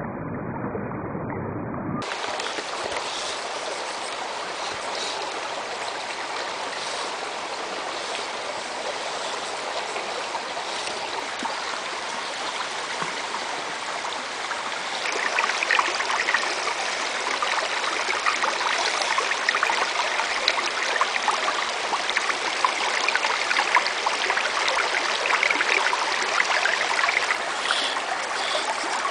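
A rocky stream running steadily, an even rush of water that gets louder about halfway through.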